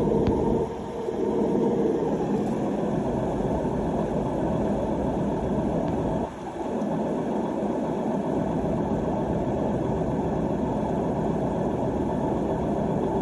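AEG washing machine running with a steady loud noise from its drum bearings, which are worn. The noise dips briefly twice.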